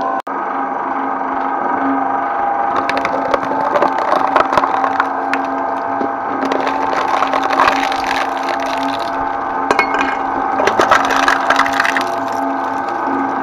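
Twin-shaft shredder running with a steady motor and gearbox hum. From about three seconds in, hard material cracks and crackles in irregular bursts as it is crushed between the cutter discs, easing off near the end.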